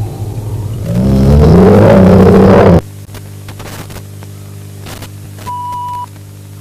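A loud, distorted horror sound effect with a wavering pitch that bends up and down, cutting off suddenly about three seconds in. Steady electrical hum and tape-style static follow, with a short high beep about half a second long near the end.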